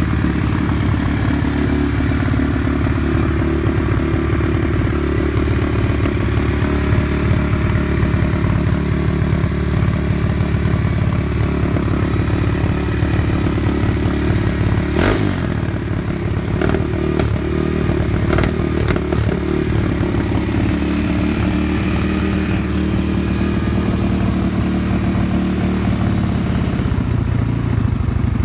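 Honda Dax's 140cc YX single-cylinder four-stroke engine running steadily through a Stage Japan exhaust. A few sharp clicks come about halfway through.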